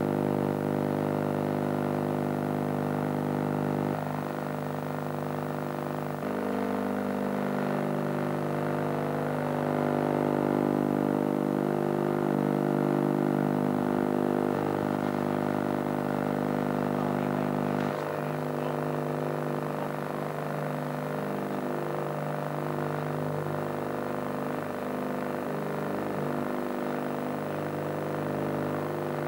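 Engine of a hang-glider tow winch idling steadily, its pitch shifting slightly a few times.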